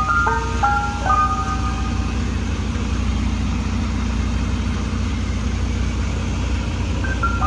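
Ice cream truck's electronic chime box playing its jingle, which breaks off about a second and a half in and starts again near the end. The truck's engine idles steadily underneath.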